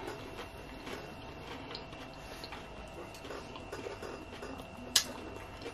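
Quiet chewing and wet mouth sounds of someone eating loaded nachos, with scattered small clicks and one sharp click about five seconds in.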